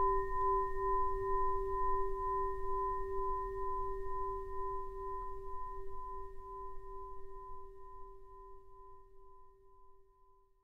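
Tibetan singing bowl ringing out: a low tone with two higher overtones, pulsing gently as it slowly fades away to nothing near the end.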